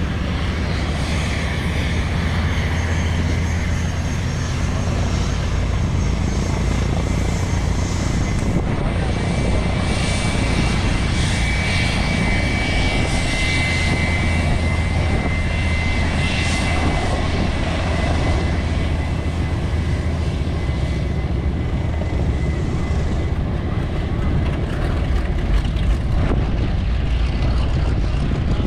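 Boeing B-17 Flying Fortress's Wright Cyclone nine-cylinder radial piston engines running steadily, with a deep, even propeller drone.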